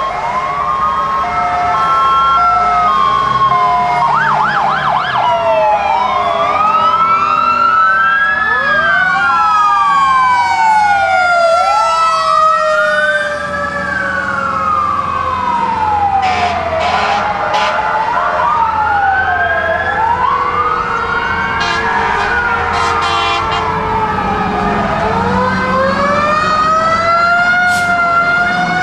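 Several fire-truck sirens wailing at once, their pitches rising and falling out of step with each other, over the low rumble of the passing fire trucks' engines. A brief two-tone alternation sounds at the start, a quick fast warble comes about four seconds in, and a few short sharp sounds break in around the middle and near the end.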